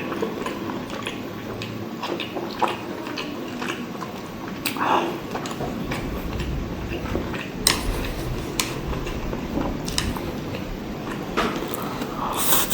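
Close-miked eating sounds of soft, fatty soy-braised pork adobo and rice being bitten and chewed: a steady run of small wet mouth clicks and squishes, with a few sharper clicks among them.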